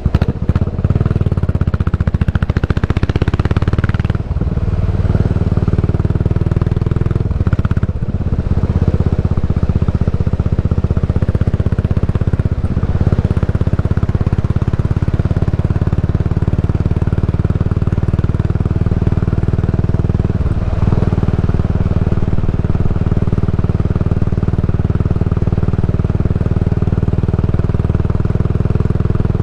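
Yamaha SR400's single-cylinder four-stroke engine running through a Goods Tapered Corn slip-on muffler while riding in traffic, a steady exhaust note with brief changes in the engine pitch about four and eight seconds in.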